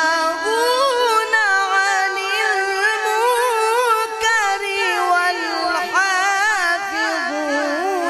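A man's voice chanting Quran recitation (tajweed) into a microphone, drawing out long melodic phrases with a wavering, ornamented pitch and a few upward swoops, without pause.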